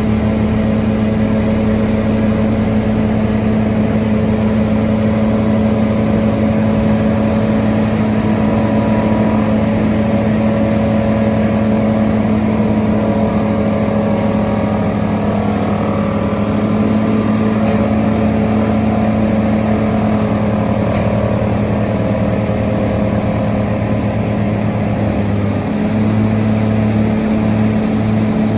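Hitachi Zaxis 490 LCH excavator's diesel engine running steadily under load while driving sheet piles: a continuous, even drone with a steady low hum.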